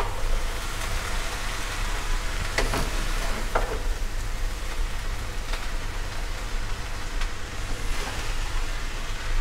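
Shredded vegetables and chicken sizzling steadily in a nonstick wok as a spatula stirs and tosses them, with a few light taps of the spatula on the pan.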